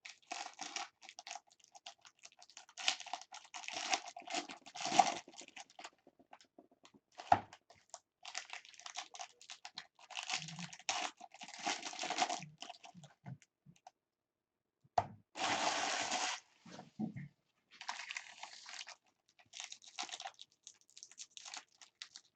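Baseball card pack wrappers crinkling and tearing as packs are opened, with cards being handled, in irregular crackly bursts and clicks; the longest, densest crinkle comes about two-thirds of the way through.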